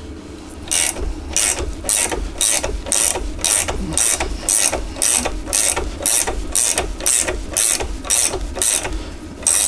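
Socket ratchet wrench turning the nut of a threaded-bar bearing puller. The handle is swung back and forth, and the pawl clicks in regular bursts about twice a second as the swing arm bearings are drawn out of their housing.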